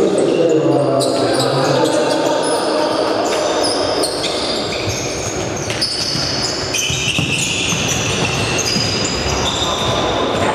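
Futsal play in a reverberant sports hall: a ball being kicked and bouncing on the court, sports shoes squeaking on the hall floor, and players' voices calling out. A sharp kick stands out about six seconds in.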